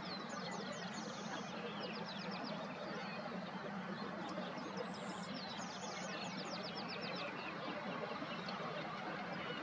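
A small songbird singing a short, high phrase about every five seconds: a thin high note, then a run of quick falling notes and a rapid trill. Under it is a steady background hiss.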